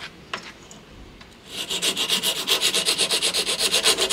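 Hand file rasping rapidly back and forth, about six strokes a second, starting about a second and a half in. The file is widening the switch opening so a wider aftermarket replacement switch will fit.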